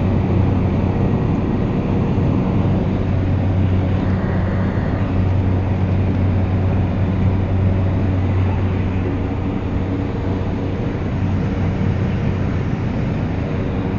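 Airplane engine and propeller droning steadily, with a deep, even hum and no change in pitch.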